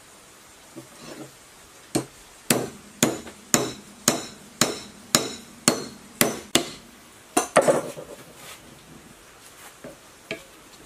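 A bearing being driven onto an electric motor's rotor shaft with a metal pipe: about a dozen sharp knocks, roughly two a second, starting about two seconds in, followed by a few lighter knocks.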